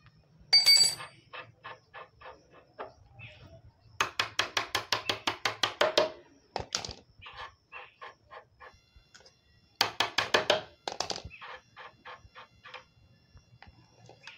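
A spanner working loose the front axle nut of a motorcycle wheel. There is a sharp metallic clink with a brief ring about half a second in. After that come runs of rapid, even clicking, about eight a second, near four seconds and again near ten seconds in, with scattered single clicks between.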